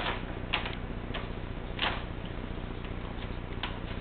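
Brown paper grocery bag crinkling as a cat paws and pushes at it on a tile floor, in a few short, separate crackles, the loudest near two seconds in.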